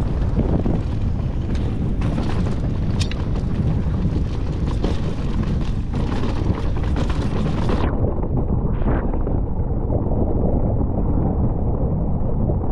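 Wind buffeting an action camera's microphone as a mountain bike runs fast down a dirt singletrack: a loud, steady rumble with a few knocks from the bike over bumps. About eight seconds in, the hiss above the rumble cuts off suddenly and the sound turns muffled.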